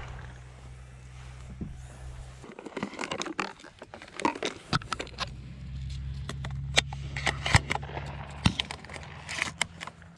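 Close handling noise of hunting gear: a run of sharp clicks, taps and scrapes, some louder than others, over a low steady rumble that drops out for a few seconds about two and a half seconds in.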